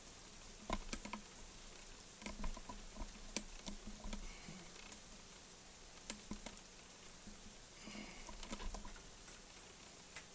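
Keys on the StarWriter Pro 5000 typewriter computer's keyboard being pressed, faint irregular clicks in short bursts, over a low steady hum.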